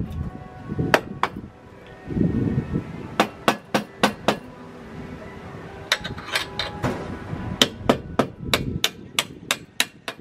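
Sharp metallic knocks on the stainless steel mounting tubes of a sailboat wind vane as they are worked at the stern rail. The knocks are scattered at first, then come in a quick run of about five a second near the end.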